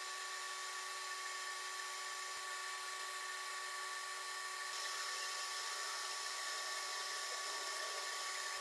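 A small motor or machine running steadily: an even whine with hiss that brightens slightly about halfway through.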